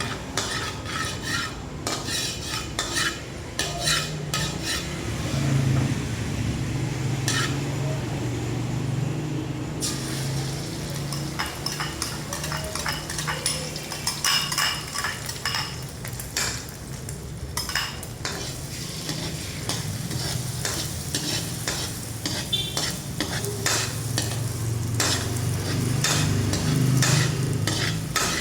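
Fried rice being stir-fried in a hot pan: a spatula scraping and clicking against the metal over steady sizzling, with a low hum underneath.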